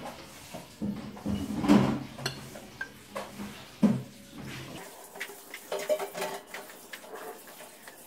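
Gingerbread house pieces being handled and set down on a ceramic plate: scattered knocks and clinks, the loudest about two and four seconds in. A low background hum stops abruptly about five seconds in.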